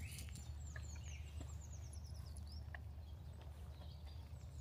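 A songbird singing a fast run of short, high, downward-sliding chirps, about ten a second, for about two seconds, over a faint low steady rumble.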